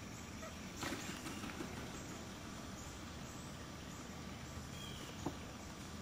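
Quiet woodland ambience: a steady low background hiss with a few scattered clicks, the sharpest about five seconds in, and a faint short high chirp just before it.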